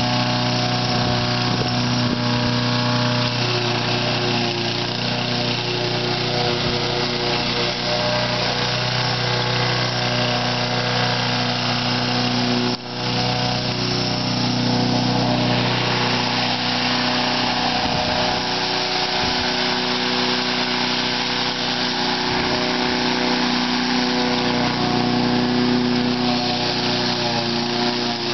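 Petrol walk-behind rotary lawn mower engine running steadily while the mower is pushed, with one brief drop in level about halfway through.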